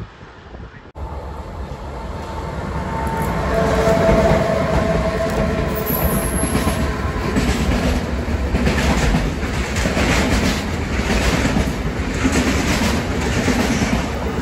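Intermodal freight train hauled by electric locomotives passing close at speed: the rumble builds over the first few seconds, with a steady whine as the locomotives go by, then the wagons clatter rhythmically over the rail joints.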